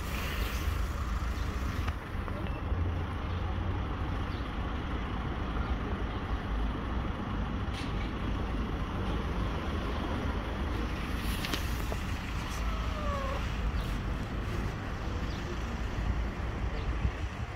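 Steady low rumble of street traffic, with a few faint short falling chirps about two-thirds of the way through.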